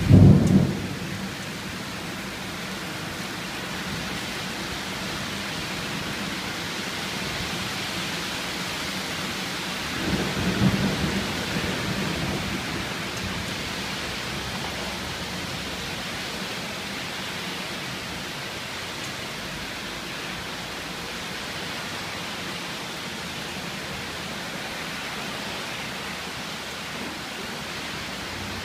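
Steady rain during a thunderstorm. A loud clap of thunder comes at the very start, and a second, weaker roll of thunder about ten seconds in fades over a couple of seconds.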